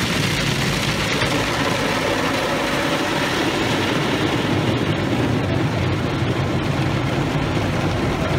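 Automatic car wash working over the car, heard from inside the cabin: a steady, loud rush of noise.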